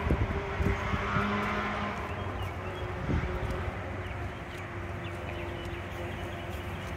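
Steady low rumble of road traffic with a faint engine hum, and a few faint high chirps about halfway through.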